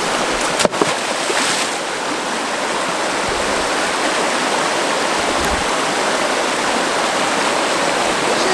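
Rushing stream water, a loud steady rush, with one sharp click under a second in.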